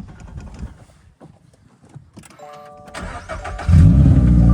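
Car engine cranking and starting, heard from inside the cabin, after a few knocks and a brief chime. Loud music comes in suddenly near the end.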